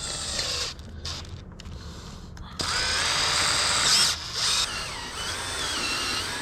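Power drill running, boring out a mounting hole in a replacement ATV starter motor so a larger bolt will fit through. A short run comes first, then a longer, louder run from about two and a half seconds in, its pitch wavering as the bit cuts.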